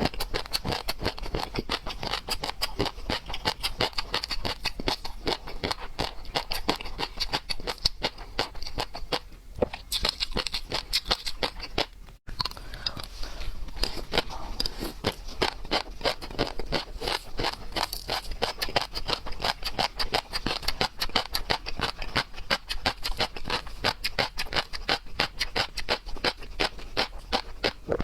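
Close-miked eating sounds: seafood being chewed and crunched, a dense run of small wet crackles and clicks, broken off for an instant about twelve seconds in.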